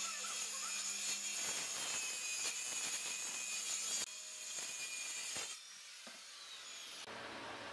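Handheld circular saw ripping through a solid wooden panel, a dense, steady cutting noise. About four seconds in the sound drops as the cut finishes, and by about five and a half seconds in the saw has gone quiet, lifted clear of the board.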